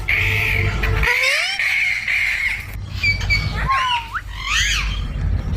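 Green ringneck parrot calling: a long raspy screech for the first couple of seconds, then short high notes, a hooked whistle and a few chirps.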